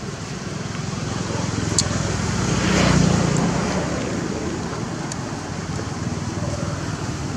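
A motor vehicle passing by, its noise rising to a peak about three seconds in and then fading, over steady outdoor background noise; a couple of sharp ticks.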